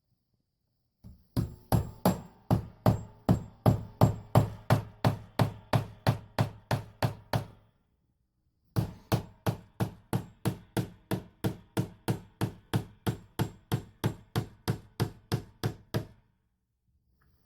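Hammer blows, most likely driving nails into wood: two long runs of steady, evenly spaced strikes at about three a second, with a short pause about eight seconds in.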